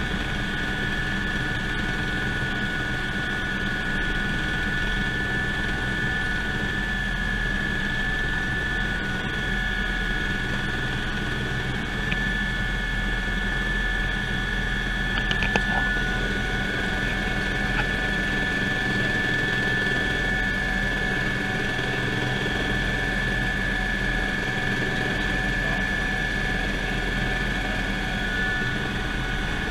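Eurocopter EC120 Colibri helicopter in flight, heard from inside the cabin: a steady high whine from its Turbomeca Arrius 2F turboshaft over the low drone of the rotor, with one brief click about halfway through.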